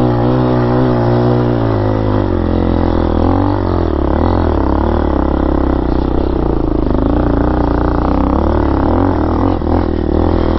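Fuel-injected, air-cooled 230cc four-stroke engine of an RPS Hawk DLX 250 dual-sport motorcycle running under load as it pulls up a dirt hill. Its pitch rises and falls repeatedly as the throttle opens and closes.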